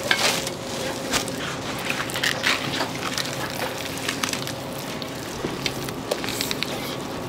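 Food-preparation noise in a busy kitchen: scattered clicks, knocks and clatter of handling, over a steady background hum.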